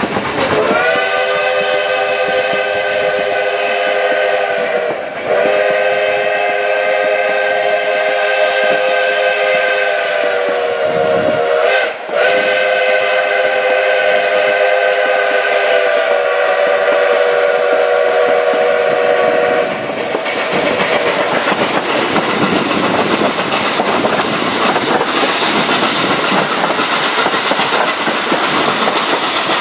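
Steam locomotive whistle sounding a long chord three times, with a short break between blasts and a slight dip in pitch as each one drops. The whistle stops about two-thirds of the way through, leaving the steady rolling noise and clatter of the train's wheels on the rails.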